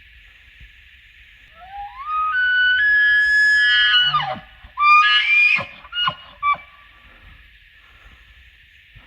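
Bull elk bugling: a rising whistle that climbs and holds high for about two seconds, breaks and drops low, then a few short chuckles.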